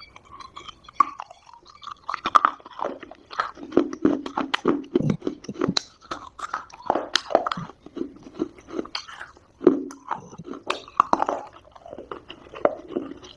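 Close-up chewing of Multani mitti (fuller's earth clay): a steady run of crisp crunches and sharp cracks as the dry clay breaks between the teeth.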